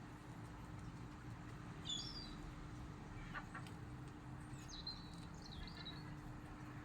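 Small bird chirping: a short high chirp about two seconds in, then a longer wavering call around five seconds, over a faint steady background with a low hum.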